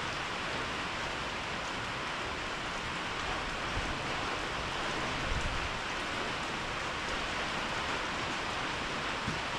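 Steady hiss of rain falling, with a couple of brief low thumps around the middle.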